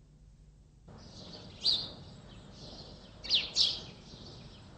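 Birds chirping over a faint outdoor ambience that starts about a second in: one short high chirp, then two quick chirps a little later.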